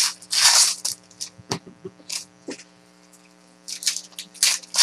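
Packaging crinkling and tearing as a box of trading cards is opened, in short rustling bursts: the biggest in the first second, a quiet stretch in the middle, then several more near the end. A faint steady low hum runs underneath.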